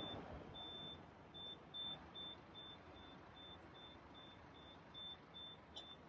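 Faint string of short, high-pitched electronic beeps at one steady pitch, about two or three a second, over quiet background noise.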